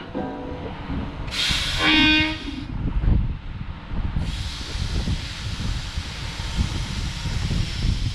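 Diesel engine of a Grove mobile crane running as the crane creeps forward, with a short burst of air hiss and a brief horn-like tone about a second and a half in. An even hiss sets in at about four seconds and carries on over the engine.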